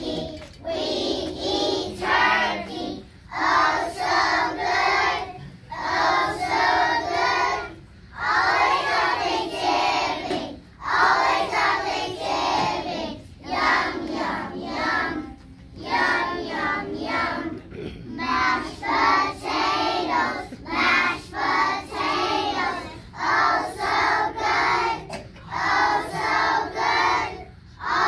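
A class of preschool children singing together as a group, in short phrases with brief pauses between them every two to three seconds.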